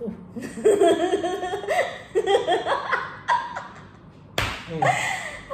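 A woman laughing loudly in several bursts, with a short sharp noise about four seconds in.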